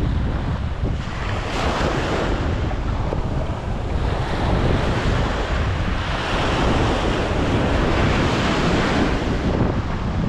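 Wind buffeting the microphone over the wash of water, swelling louder twice in stronger gusts.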